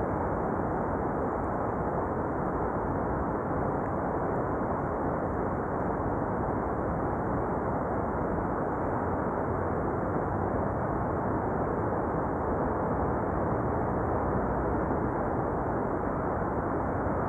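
Steady rushing noise of wind and rough sea beside a seawall, with the wind buffeting the microphone.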